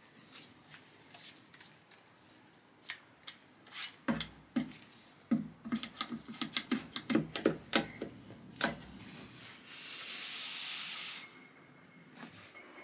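Irwin Quick-Grip bar clamp being tightened by hand, its trigger clicking in a quick run of a dozen or more clicks, after light knocks of the wooden block being handled. Near the end comes a hiss lasting about a second and a half.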